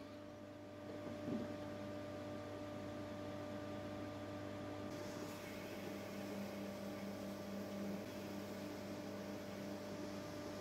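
Steady low electrical hum with a faint thin haze, and a soft brief sound about a second in.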